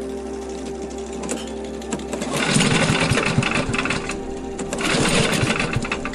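Small single-cylinder engine of a motorized towing sled running steadily, then revved up about two and a half seconds in, running louder and rougher with a brief dip partway.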